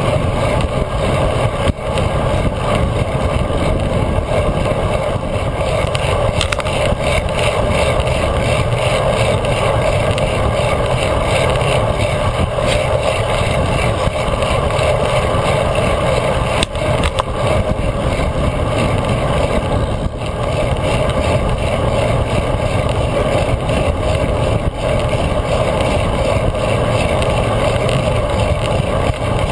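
Steady rush of wind and road noise on a GoPro mounted to a moving road bike's handlebars, with tyre hum on asphalt and a few short knocks from bumps in the road.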